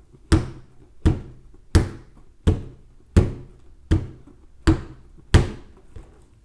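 Balloons popping one after another: eight sharp bangs, evenly spaced about two every three seconds, each with a short ringing tail, and a fainter one near the end.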